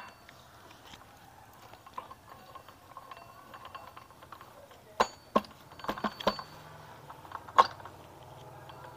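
Scattered sharp metallic clinks and knocks as a motorcycle magneto flywheel rotor is handled and seated onto the crankshaft against the stator, with a cluster of clinks about five to eight seconds in.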